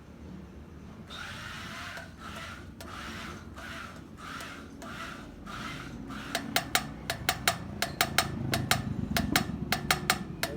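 Hand-tool work: about two rasping, rubbing strokes a second, followed from a little past halfway by a quick run of sharp, ringing clicks or taps.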